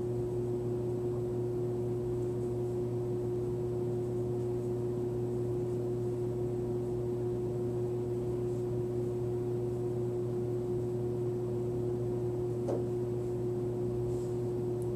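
Steady machine hum from room equipment, with one held mid-pitched tone over a low drone. There is a single faint tap near the end.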